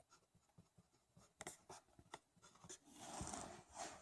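Faint writing on a spruce-pine-fir board: a few short scratchy strokes, then a longer scribble near the end.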